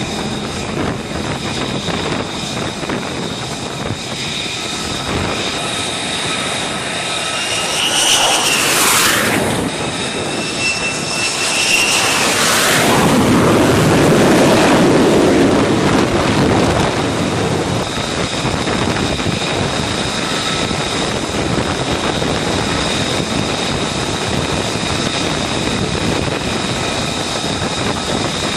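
F-35C fighter jet engines (single F135 turbofans) running: a steady high whine over the rush of jet exhaust. A jet sweeps past about eight to twelve seconds in, and the sound is loudest from about thirteen to sixteen seconds, then settles back to a steady whine.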